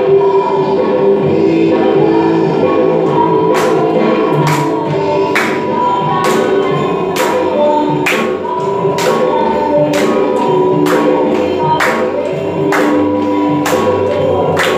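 Christian worship song playing, with singing voices over the music; sharp drum hits come in about three and a half seconds in and keep time at roughly one a second.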